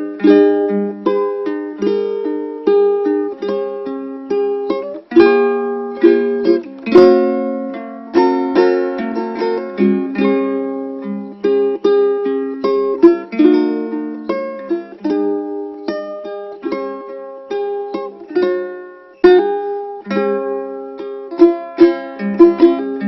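Solo ukulele playing a melody of plucked notes over chords, with occasional strummed chords.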